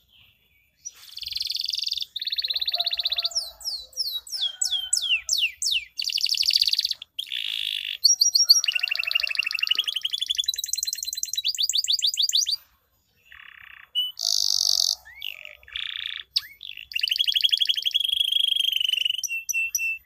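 Canary singing a long, varied song of chirps, fast trills, a run of falling whistled notes and extended rolls, with one short break about two-thirds of the way through.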